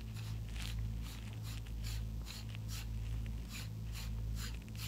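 Metal threads scraping as a universal suppressor mount is screwed by hand into the suppressor tube: a run of short scraping strokes, about three a second, over a steady low hum.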